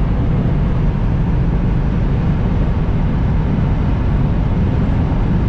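Steady, loud rush of wind, tyre and engine noise inside the cabin of a 2016 Subaru WRX STI accelerating past 200 km/h in fifth gear.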